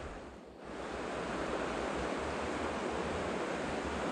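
A swollen river running high, rushing steadily; the sound drops briefly just after the start, then holds even.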